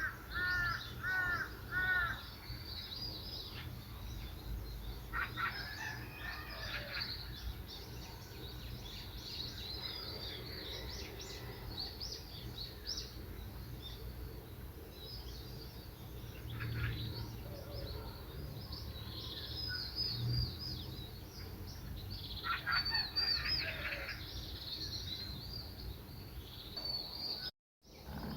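Several wild birds chirping and calling outdoors, with a quick run of three repeated arching notes at the start, many short high chirps throughout, and denser clusters of calls about five seconds in and near the end. The sound cuts out for a moment just before the end.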